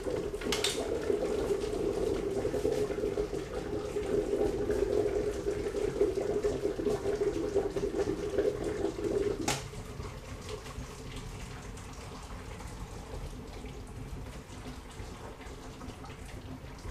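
Dry ice bubbling violently in an electric kettle of hot water, a loud steady churning gurgle as the carbon dioxide sublimes. About nine and a half seconds in there is a click, and the bubbling carries on more quietly.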